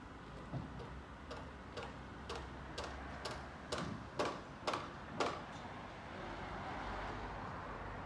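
Hammer blows, sharp and regular at about two a second, about ten strikes that stop about five seconds in; a steady rushing noise follows.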